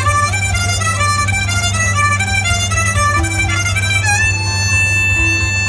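Amplified live street-busker music. A melody of quick high notes plays over a steady low drone, then settles into a long held high note about four seconds in.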